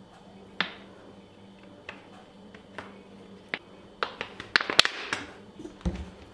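Batter-filled plastic PET bottle being handled: a few separate sharp clicks, then a quick run of plastic clicks and crackles as the cap is screwed on, and a dull knock as the bottle is stood on the counter near the end.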